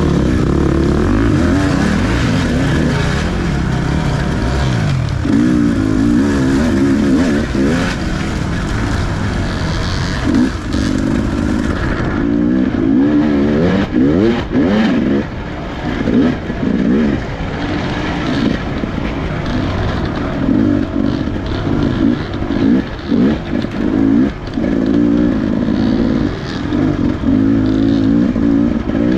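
Dirt bike engine heard from a camera on the bike itself, revving up and down through the gears, with frequent short throttle chops as the rider works along a rough trail.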